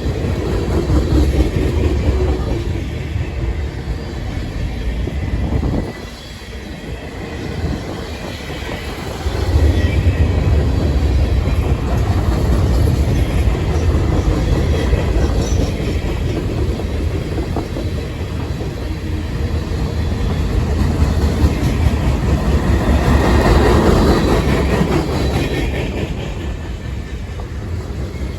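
Freight train rolling past: steel wheels rumbling and clacking over the rails, with a dip in the rumble about six seconds in before it picks up again.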